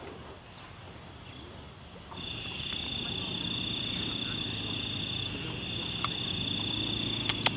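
Night insects, cricket-like, chirping in a steady high chorus that starts about two seconds in. A low engine hum from an approaching vehicle runs underneath it and grows a little near the end.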